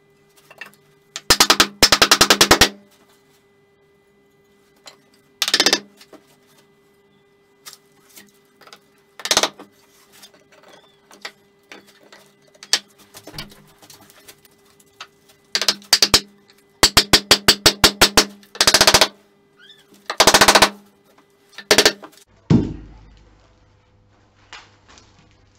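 Wooden mallet knocking oak tenons home into the mortises of a table leg assembly: runs of quick, hard knocks with single knocks in between, and a heavier thump near the end.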